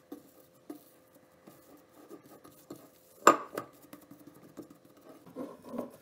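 Hands working soft risen yeast dough in a glass mixing bowl: scattered light taps and handling noises, with one sharp knock against the glass about three seconds in.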